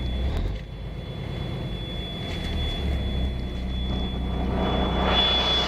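The Cummins NHC-250 inline-six diesel of a 1984 M923 5-ton cargo truck idling, a steady low drone heard from inside the cab with a thin high whine over it. Near the end a loud rush of hiss rises over the engine.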